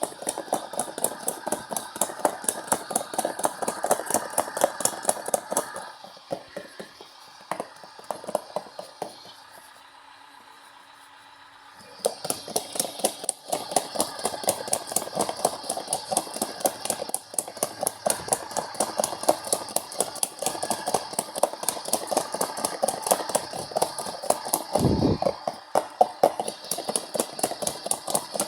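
LG washing machine running its heavy-load wash, with a rapid stream of knocks and sloshing several times a second. It stops for about two seconds near the middle, then starts again.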